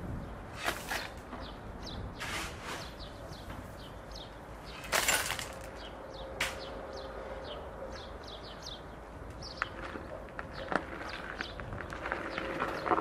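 Steel shovel scraping into a gravel pile and gravel tossed into a metal wheelbarrow, in a few separate scoops, the loudest about five seconds in. Small birds chirp throughout.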